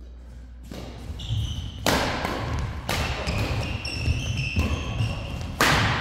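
Badminton doubles rally: rackets striking the shuttlecock five times, about a second apart, the last hit the loudest, over players' feet thudding on the court.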